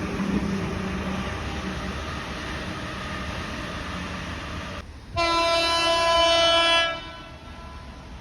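A Sydney electric train's horn sounds once about five seconds in, a chord of several steady tones lasting just under two seconds, after a steady rumble.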